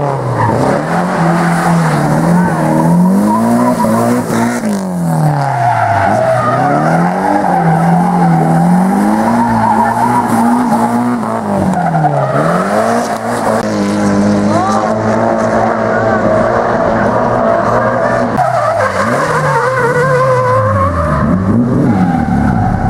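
Drift car sliding with tyres squealing, its engine revving up and down over and over as the throttle is worked through the slide.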